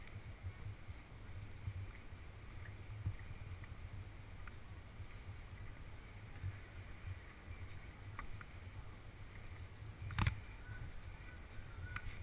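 Low, steady rumble of road noise from a moving vehicle, heard from inside, with a single sharp knock about ten seconds in.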